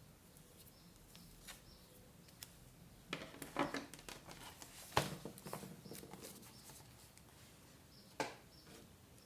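Paper and scrapbooking materials handled on a desk: soft rustles and taps, with a cluster of them about three seconds in, the sharpest tap about five seconds in, and another near the end.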